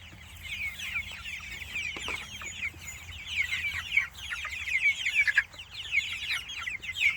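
A flock of five-week-old Freedom Ranger meat chickens peeping, many short falling chirps overlapping without a break. The chirping grows louder about three seconds in.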